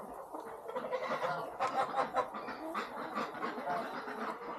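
Chickens clucking softly around the feed, with scattered short clicks and rustles.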